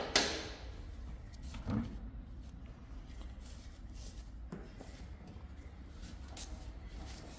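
Rear wheel being taken off a motorcycle: a sharp metallic clank with a short ringing tail right at the start, a duller knock about two seconds in, then a few faint handling knocks over a low steady workshop hum.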